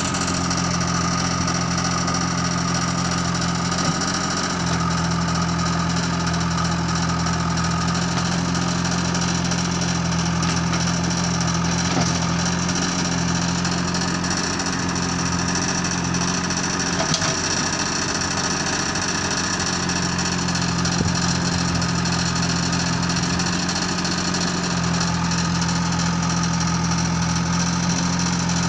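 Diesel engine of a JCB 3DX backhoe loader running steadily as it digs mud and loads a tractor trolley, its note shifting slightly a couple of times with the load, with a few faint knocks.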